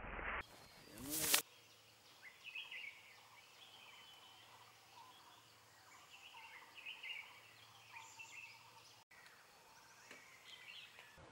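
Faint forest ambience with scattered short bird chirps, after a brief loud noise at the very start.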